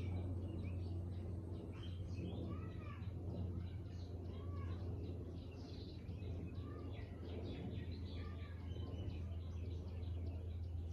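Several songbirds chirping and calling at once, with a short arched call near 1 kHz repeated every couple of seconds among quicker high chirps. A steady low hum runs underneath.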